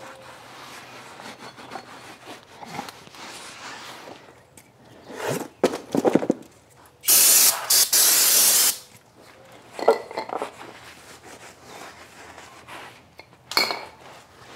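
Aerosol brake cleaner sprayed onto the brake parts in one long burst of about a second and a half, just past the middle, to clean off oil. Quieter scraping and handling clatter come before and after it, with a sharp knock near the end.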